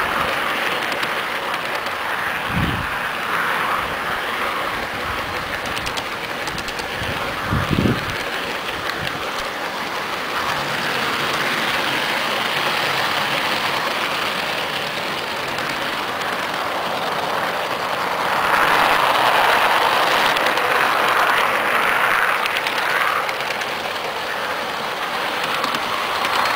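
Garden-scale model train running along its outdoor track, heard close up from a camera riding on the train: a steady rolling rumble and rattle of wheels on rail, with two brief low knocks about five seconds apart and a louder stretch about two-thirds of the way through.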